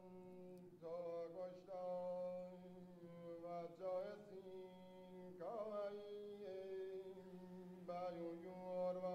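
Archival tape recording of Zoroastrian Avestan chanting from a funeral service in Kerman: a single voice intoning long held notes in a slow, stepping melodic line over a steady low hum.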